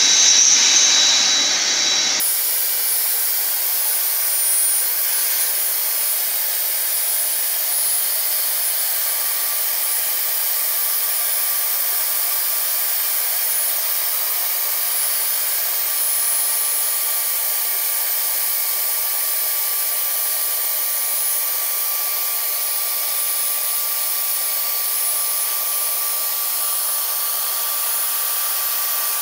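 Bestway Lay-Z-Spa pump unit's air blower running steadily, pushing air through a hose to inflate the spa's walls. A continuous even rush with a faint steady whine, which settles in about two seconds in.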